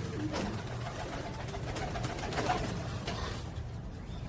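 Domestic pigeons cooing in a loft: low, wavering coos that trail off near the end, with a few faint ticks.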